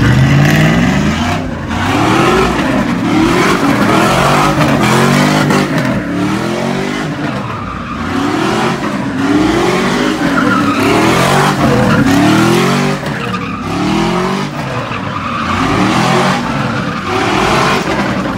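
Chevrolet Silverado pickup doing donuts: its engine is revved up and down over and over, roughly once a second, while the rear tyres squeal and skid on the asphalt.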